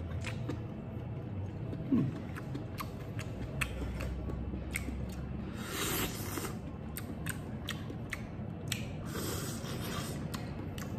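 Close-up eating sounds: chewing and biting a piece of chicken from noodle broth, with many small scattered clicks of mouth and chopsticks, and two short slurps about six and nine seconds in.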